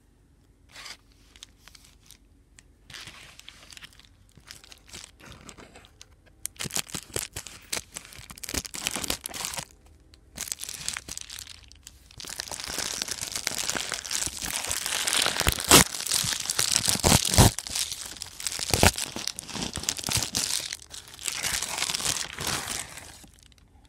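Plastic bubble mailer being torn open and crinkled by hand: scattered rustles at first, then denser, louder crinkling and tearing from about six seconds in, with a few sharp snaps partway through.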